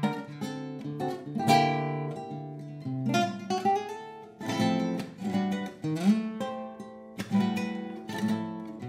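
Nylon-string classical guitar playing a zamba: plucked bass notes and melody broken by strummed chords, with a short upward slide about three seconds in.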